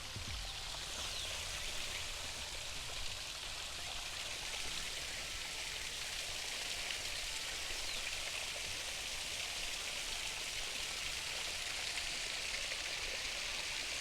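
Steady rushing hiss of flowing water, even throughout, with a few faint short high chirps over it.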